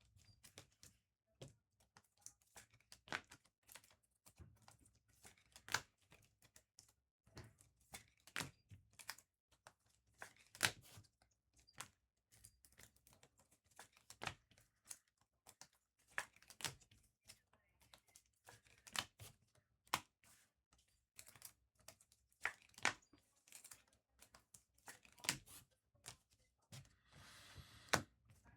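Bowman basketball card packs being torn open and the cards handled: irregular sharp tearing and crinkling of wrappers with light clicks.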